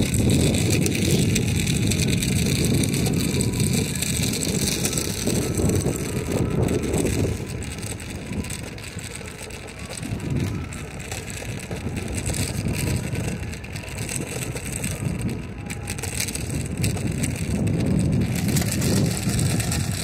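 Wind buffeting the microphone, with a rough rumble of travel over asphalt, easing for a few seconds midway.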